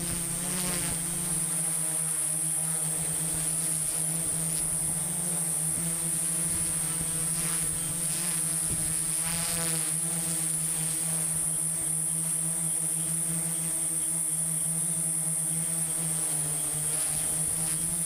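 Small multirotor drone's motors and propellers buzzing steadily in flight, heard from the drone's own camera, with the pitch wavering briefly a few times.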